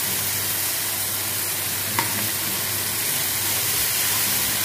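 Chopped onions and tomato sauce sizzling in a hot nonstick wok while a wooden spatula stirs them, with a single light knock about two seconds in.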